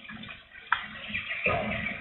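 Strong wind with light rain falling, a steady rushing noise. There is a sharp tick about three-quarters of a second in, and a louder gust with a low rumble about one and a half seconds in.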